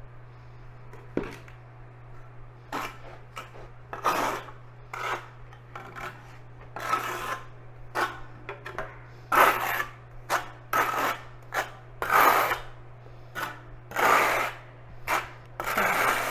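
Steel notched trowel scraping thin-set mortar onto the back of a concrete tile, burning it in with repeated firm strokes. The strokes are sparse at first and come about once or twice a second from about four seconds in, over a faint steady low hum.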